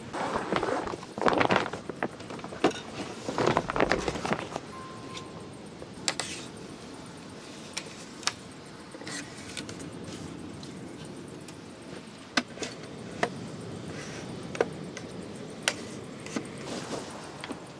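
Rustling handling noise for the first four seconds or so, then about a dozen light, sharp clicks and knocks spread out over a steady background hiss.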